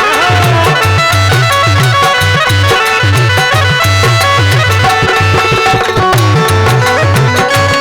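Instrumental interlude of a Rajasthani devotional folk song (Mata ji bhajan): a steady, driving drum beat under a sustained melody line that slides between notes, with no singing.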